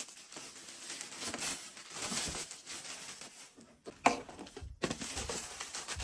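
Irregular rustling and crinkling of packaging being handled, with a couple of sharper clicks or knocks about four and five seconds in.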